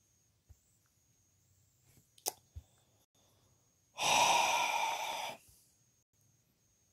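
A person's single breathy sigh, an exhale lasting about a second and a half, starting about four seconds in; a faint click comes a little after two seconds, and otherwise it is near silence.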